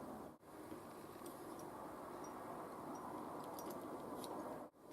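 Low steady background hiss, broken by two brief dropouts, with a few faint light ticks near the end.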